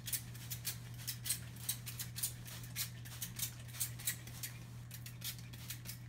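Hand-held trigger spray bottle squirting water mist, pumped again and again in short, quick hisses, a few a second. A faint low steady hum sits underneath.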